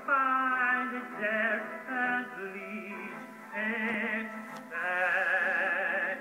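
A man singing in an operatic style over backing music, in short phrases with heavy vibrato, ending on a long held, wavering note. It is heard thinly through a television speaker.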